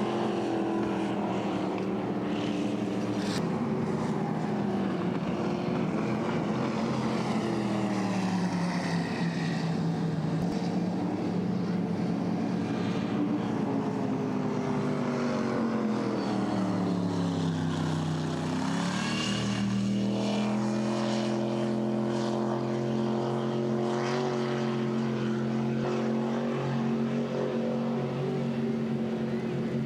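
Race boat engines running hard. Their pitch sinks gradually, dips lowest near the middle, then climbs back and holds steady.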